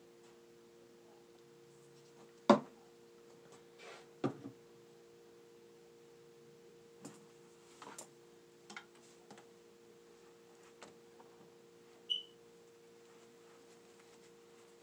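Scattered clicks and knocks from handling a paintball gun barrel with a cleaning rod and rag, working at a stuck paintball. The loudest knock comes about two and a half seconds in. A steady two-note hum runs underneath.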